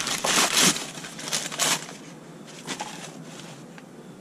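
Trash being rummaged through by hand in a dumpster: crinkling and rustling strokes, busiest in the first two seconds, then quieter handling with a couple of light knocks.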